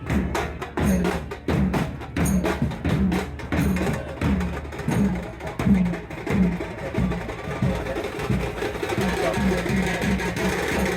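Procession drumming: deep dhol strokes that drop in pitch, about two a second, under fast, sharp, clicking drum hits; the playing grows busier near the end.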